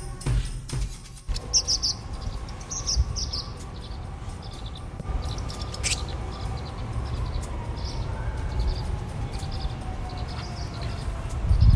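Small songbirds chirping in short, high calls, a cluster of them between about one and four seconds in and fainter ones later, over a steady low rumble. A faint tone slowly falls in pitch through the second half.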